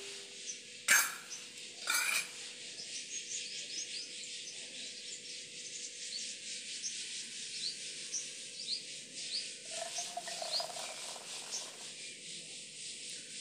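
Two sharp metal knocks about one and two seconds in as the metal kadhai is handled on the wood-fired chulha, then a soft rubbing, pouring sound near the end as the thickened rabri is tipped from the kadhai into a steel bowl. Birds chirp steadily behind.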